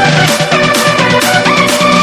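Upbeat electronic background music with a steady beat and a synth melody.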